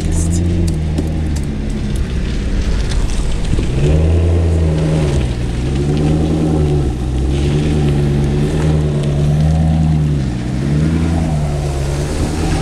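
Maserati GranTurismo S's 4.7-litre V8 engine running at moderate revs. The note holds steady, drops briefly and climbs back again four times.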